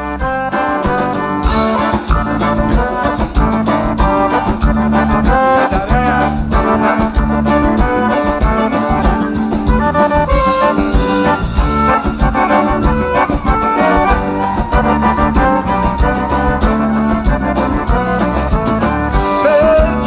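Live gaúcho band playing an instrumental passage: two piano accordions carry the tune over a drum kit and bass guitar with a steady, even beat.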